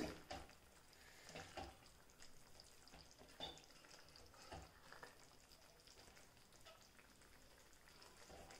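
Faint stirring of a thick curry with a wooden spatula in a metal kadai: soft, irregular scrapes and knocks against the pan, with a faint sizzle of the gravy cooking on the gas flame.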